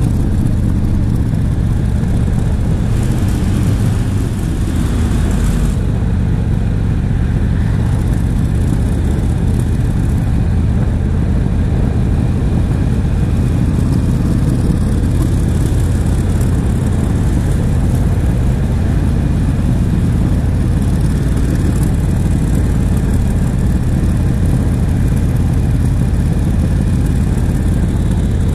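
Yamaha XVS1300CU Stryker cruiser's V-twin engine running steadily while the motorcycle is ridden along a winding road, with a steady rush of wind and road noise over it.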